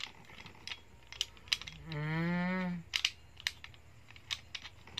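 Scattered sharp clicks from a motorcycle phone holder's clamp being handled and adjusted, with a held hum of voice lasting about a second, two seconds in.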